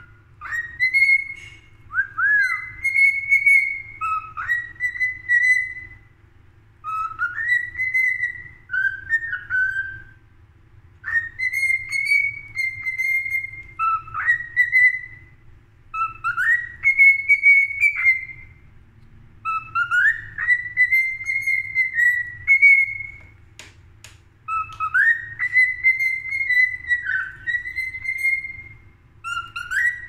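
Cockatiel whistling a repeated tune: a string of clear whistled phrases, many sliding up and then holding, each a second or two long with short pauses between.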